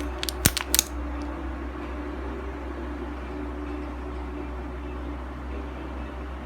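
Hot air blower set to 450 running steadily, its fan and airflow making an even rushing noise with a low hum, as it heats the side of a plastic bottle. A few sharp clicks come in the first second.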